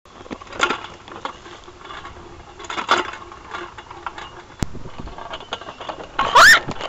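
Playground spinner seat being spun round, rattling and clicking in bursts, with a sharp click in the middle. Near the end comes a short, loud squeal that rises steeply in pitch.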